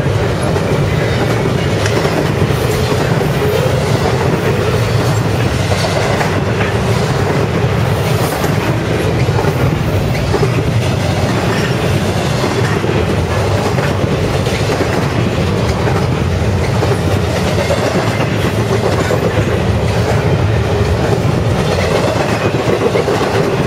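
BNSF double-stack container train passing close by at speed: a loud, steady rolling noise from the steel wheels of the loaded well cars running over the rails.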